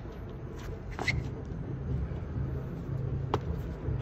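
Steady low rumble of city background, with two sharp knocks from two people's Bajiquan partner drill, about a second in and again a little past three seconds.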